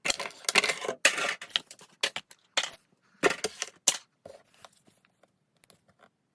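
Packaging handled during an unboxing: a run of sharp crackles and rustles that start and stop in irregular clusters.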